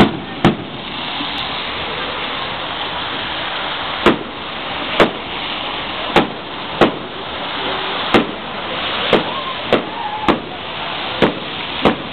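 Fireworks display: aerial shells bursting in a string of sharp bangs, about a dozen, roughly a second apart, over a steady hiss.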